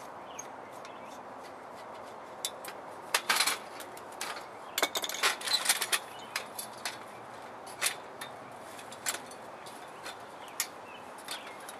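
Hollow aluminum lawn chair frame clinking and knocking as it is handled, with the rustle of old plastic webbing being pulled off it. Scattered sharp taps, busiest about three seconds in and again around five to six seconds in.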